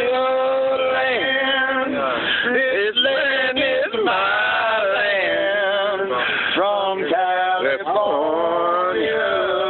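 A man singing with long held notes that waver in pitch, accompanied by a strummed acoustic guitar.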